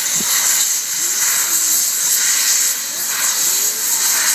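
C61 steam locomotive standing at rest, venting steam from low by its cylinders with a loud, steady hiss.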